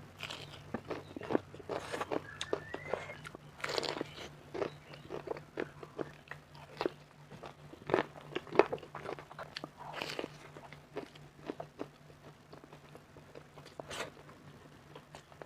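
Close-up eating sounds of crispy fried chicken: irregular crunchy bites and chewing, the crust cracking with each bite. A faint steady low hum lies under it.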